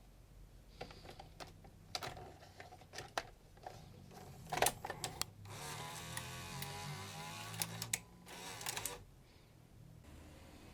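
Sony SL-HF95D Betamax deck's mechanism clicking and clunking several times, then a motor whirring for about three seconds before it stops, with a few more clicks.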